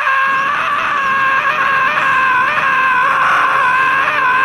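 A long scream held at one high pitch without a break, with a slight regular wobble.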